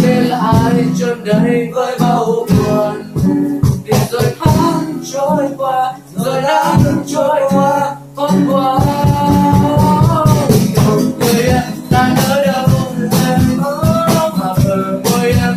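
Acoustic cover of a Vietnamese pop song: two acoustic guitars strummed under a young male voice singing the melody, with sharp percussive hits throughout. The music comes in suddenly at the start after a brief drop.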